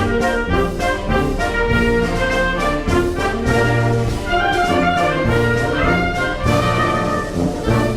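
Military wind band playing, with trumpets and trombones leading over a moving bass line in held, full chords.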